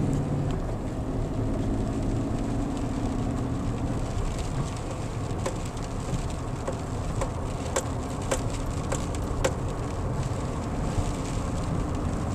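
Car driving, heard from inside the cabin: a steady low road and engine rumble, with scattered sharp ticks through the middle and later part.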